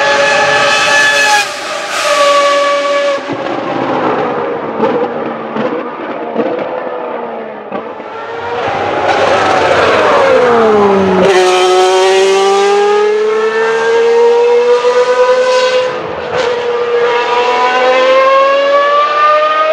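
The 1995 Ferrari 412 T2 Formula 1 car's 3.0-litre V12 engine screaming at high revs on track. The pitch steps with several gear changes, sweeps down as the car passes close about ten seconds in, then climbs steadily as it accelerates away.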